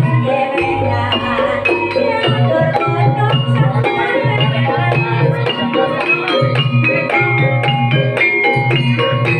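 Banyumasan gamelan music accompanying an ebeg horse-trance dance: mallet-struck keyed instruments play a busy, ringing melody over a steady repeating low drum pattern.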